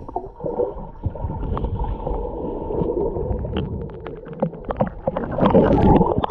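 Muffled river water sloshing and gurgling, with scattered short knocks and clicks; it grows louder and busier near the end.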